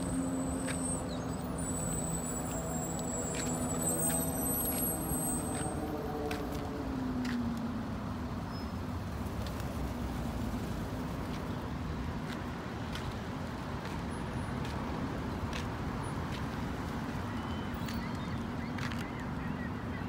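Steady road traffic noise with a vehicle engine's hum, which drops in pitch about seven seconds in as it fades. Scattered faint clicks run throughout.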